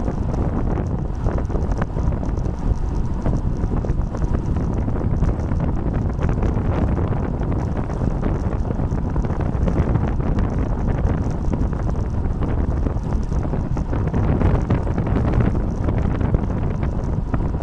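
Wind rushing over the microphone of a bike-mounted camera as a road bike coasts downhill at about 30 mph, a steady, loud rumble with small gusty swells.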